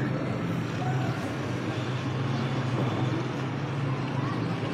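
Steady traffic noise with a continuous low engine hum.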